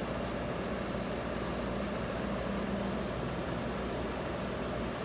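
Pen or pencil scratching lightly on paper in a few short spells while sketching, over a steady low background hum.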